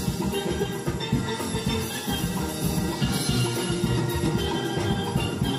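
Background music played continuously.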